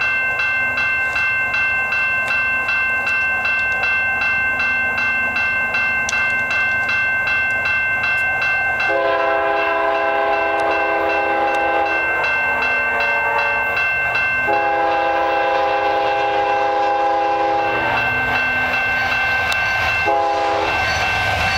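Level-crossing warning bell ringing steadily in a quick regular pulse. Over it, the approaching Canadian Pacific freight locomotive's multi-note air horn sounds the crossing signal: a long blast about nine seconds in, a second long blast, then a short one near the end.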